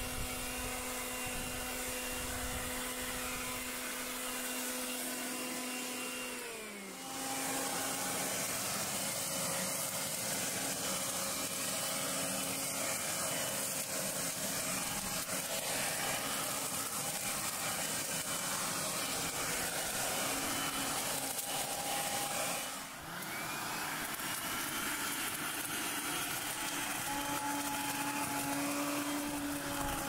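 Bosch UniversalGardenTidy 3000 electric garden blower-vacuum running: a steady high motor whine over the hiss of the airflow. The motor slows briefly about a quarter of the way through and again about three quarters through, then runs back up at a slightly different pitch.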